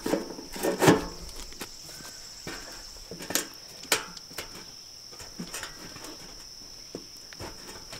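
Steady high insect buzz, typical of crickets, with several sharp knocks and clunks as a pine log is levered on a sawmill bed with a steel cant hook. The loudest, deepest knock comes about a second in and two more follow near the middle.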